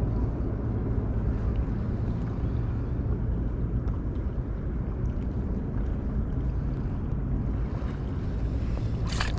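Steady low rumble of wind on the microphone over open water, with a few faint ticks and a short cluster of sharper clicks near the end.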